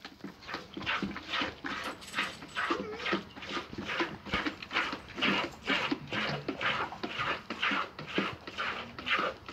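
A cow's tongue licking a kitten's fur: a run of wet, rasping lick strokes, about two to three a second.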